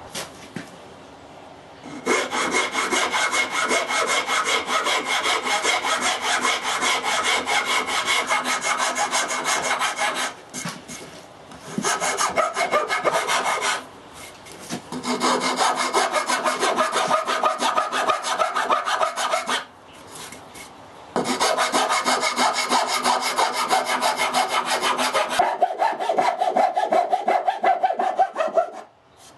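Pallet wood being worked by hand with fast, repeated rubbing strokes, in four bouts separated by short pauses.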